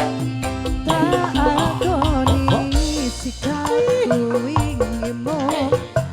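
Live band music, Indonesian dangdut or campursari style: drums and bass under a melodic lead line that bends and trills from about a second in.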